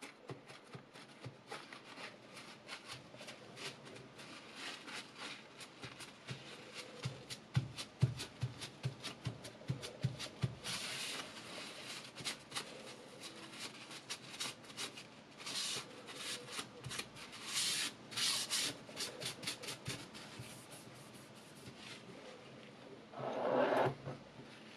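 Paper towel rubbing back and forth along a steel chef knife blade held in a sharpening jig's clamp, wiping it clean in quick strokes, with a run of soft low knocks about a third of the way in and a fuller rub near the end.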